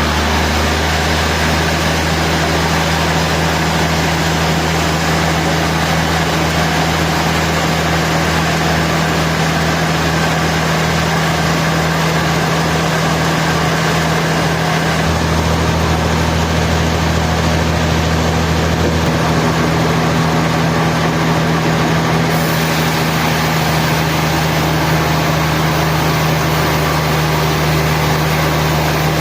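Sawmill machinery running steadily, a loud low engine-like hum with no sudden knocks; the hum shifts slightly in pitch about halfway through.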